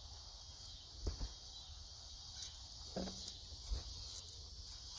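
Insects trilling steadily in the background, with a few soft low thumps scattered through.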